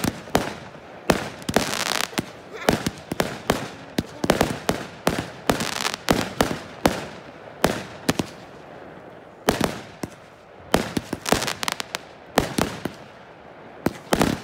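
Aerial fireworks bursting in rapid, irregular succession: dense clusters of sharp bangs and pops, with a couple of short lulls.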